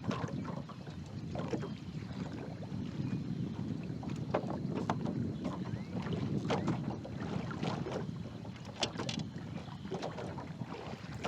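Wind rumbling on the microphone while water slaps against the boat's hull in irregular small splashes and knocks.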